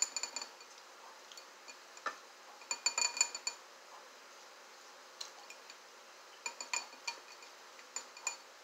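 A plastic fork tapping and scraping against a clear glass bowl while picking up shrimp: short clusters of light clinks with a brief ring, the loudest about three seconds in.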